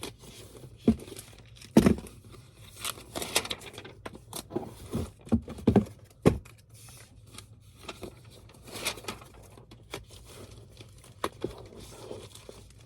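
Packaging being handled at a desk: crinkling and tearing with scattered clicks and knocks throughout.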